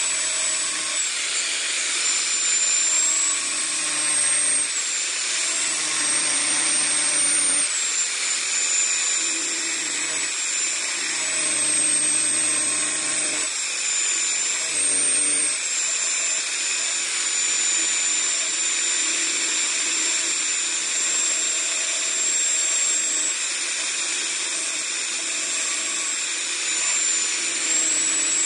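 Electric grinder grinding a steel bolt down to a point to make a woodworking drill bit. Its high whine runs continuously, the pitch rising and dipping repeatedly as pressure on the work is eased and applied, over a steady grinding hiss.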